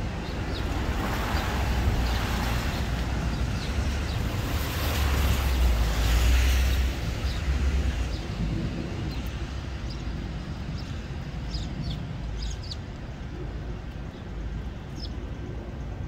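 House sparrows giving short, scattered chirps, more of them in the second half. Under them runs a steady outdoor rush that swells and fades about five to seven seconds in, as a vehicle passes.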